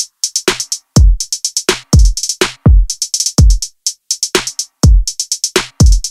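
Background electronic music: a drum-machine beat of deep kick drums that drop in pitch under fast hi-hat ticks, broken by short moments of complete silence.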